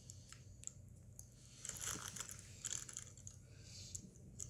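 Faint, scattered crinkles of a foil chip bag being handled and turned over, over a low steady hum.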